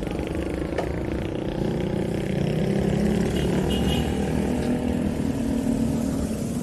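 A motor vehicle's engine running close by in street traffic, growing louder about a second and a half in and then holding steady.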